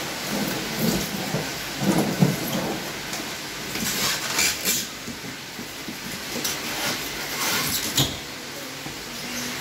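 Irregular scraping, rustling and knocking as live spiny lobsters are grabbed and lifted out of a styrofoam box by a gloved hand, with the shells and gloves rubbing and bumping against the polystyrene.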